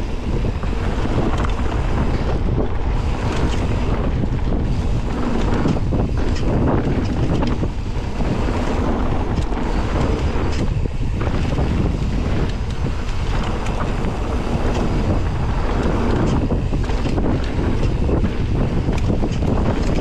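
Wind buffeting the microphone of a mountain bike in motion, over a steady low rumble with frequent small rattling knocks from the bike on a rough trail.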